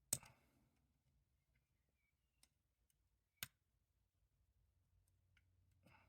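Lock picking in a custom challenge lock: a sharp metallic click right at the start, a small tick about two and a half seconds in, and a second sharp click a second later, with a soft rustle of handling near the end.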